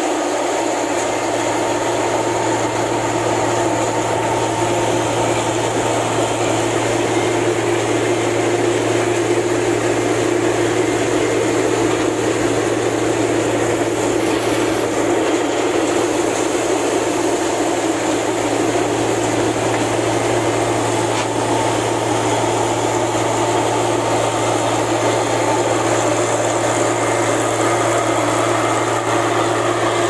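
Rice combine harvester running steadily while it cuts rice: engine and threshing machinery make a constant low hum under dense machine noise.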